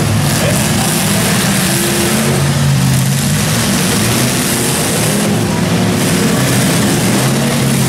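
Engines of several modified demolition derby cars revving hard, their pitch rising and falling, over a continuous loud din as the cars shove against each other in a tangled pile.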